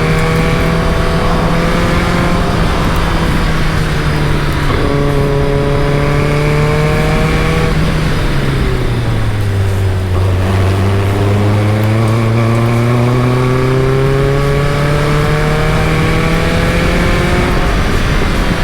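Caterham Super Seven's engine pulling hard with its revs rising and breaking at gear changes. Around the middle the revs fall away low, then climb again in one long pull before the next shift near the end.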